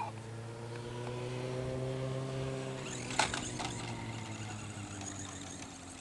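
A motor running with a steady low hum, its pitch slowly falling and fading toward the end, and a single sharp knock about three seconds in.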